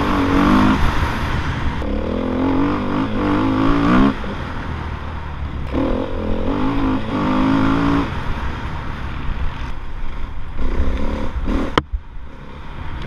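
Dirt bike engine revving hard under a helmet-mounted camera, its pitch climbing in several bursts and dropping between them as the rider works through the gears. A sharp click comes near the end.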